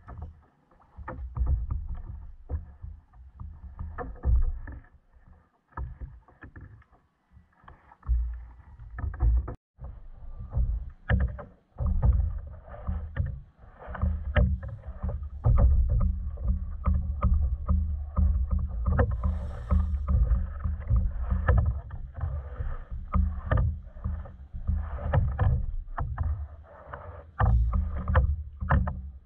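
Water slapping and knocking against a plastic fishing kayak's hull, with an uneven low rumble. Scattered clicks and knocks come from the rod and reel as a fish is reeled in, and they grow busier about twelve seconds in.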